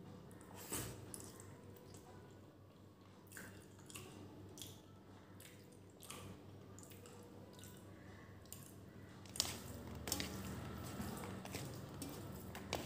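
Close-miked chewing and lip-smacking of a mouthful of rice and beef curry eaten by hand, with scattered wet clicks and squishes; fingers squelch through the curry-soaked rice on the plate. The smacks come thicker and louder in the last few seconds.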